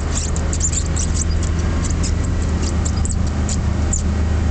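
1989 Chevrolet K2500's 350 small-block V8 running at a steady pitch in first gear, four-wheel-drive low, heard from inside the cab while the truck works on a snowy hill. Many small sharp clicks and crackles come over the engine throughout.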